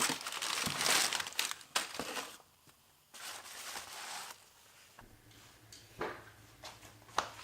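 Packaging crinkling and crumpling as new door handles are unwrapped by hand, in two stretches with a short pause between, followed by a few light clicks and taps. A faint low hum comes in about five seconds in.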